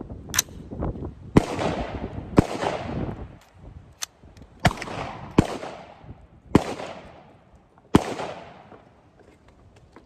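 DPMS AR-15 rifle firing .223 rounds in slow semi-automatic fire: six loud shots about a second apart, each trailing off in a long echo, with a couple of fainter cracks among them.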